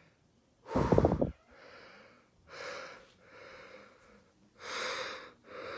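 A man yawning and breathing heavily: one short, loud, rough breath about a second in, then a run of long, noisy breaths in and out.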